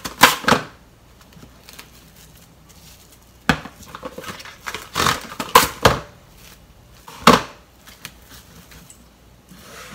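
Plastic cling film pulled off its roll, torn on the box's cutter edge, and crinkled as it is pressed over plastic cups. It comes as a handful of short crackling rustles, the loudest near the start and about seven seconds in.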